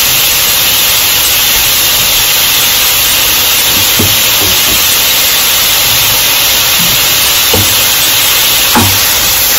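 Thin slices of seasoned flank steak sizzling in oil in a pan on high heat, a steady loud hiss. A wooden spoon stirs the meat, with a few light knocks, one about four seconds in and two near the end.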